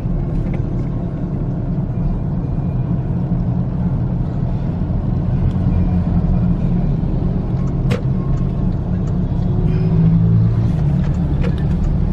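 Car engine and road noise heard from inside the cabin while driving, a steady low rumble; a single short click about eight seconds in.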